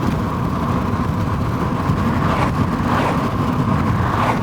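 Road and engine noise inside a moving car: a steady low rumble.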